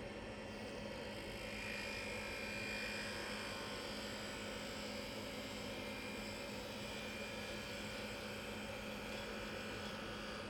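Wood lathe running steadily with a walnut blank spinning on a jam chuck. A faint high whine swells briefly about two seconds in.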